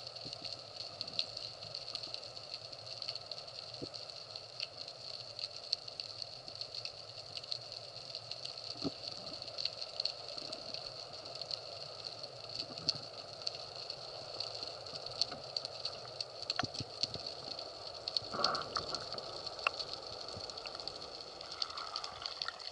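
Underwater ambience picked up by a camera in its housing: a steady high whine over a hiss, with scattered small clicks and crackles throughout and a brief louder rush about three-quarters of the way through.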